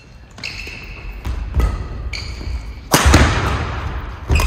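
Badminton rally: a shuttlecock is struck by rackets several times, with the loudest hit about three seconds in and sneakers squeaking on the wooden court floor between shots, echoing in a large hall.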